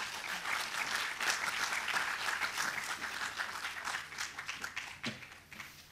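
Audience applauding, many hands clapping, thinning out and fading near the end.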